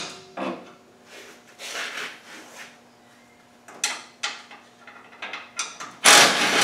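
Intermittent metallic clatter and scraping of hand tools and bolts on the Land Rover Defender's front bar fittings as it is unbolted, with a louder half-second rush of noise near the end.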